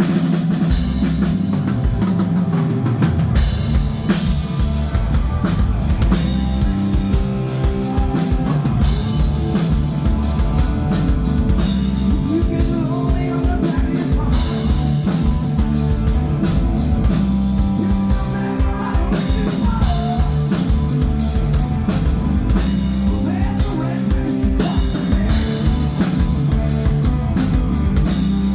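Live rock band playing: drum kit keeping a steady beat under electric guitar and bass, with singing.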